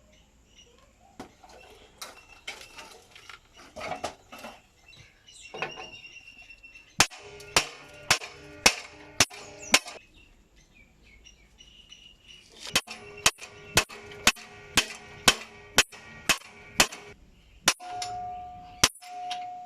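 A hammer striking metal in two runs of steady blows, about two a second, each blow ringing briefly. Softer knocks and handling come before the blows, and a short steady whine comes near the end.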